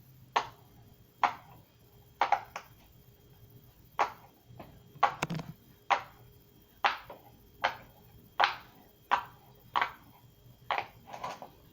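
Silicone bubbles of a jumbo pop-it fidget toy being pressed through one by one: about fifteen short, sharp pops, a little under one a second.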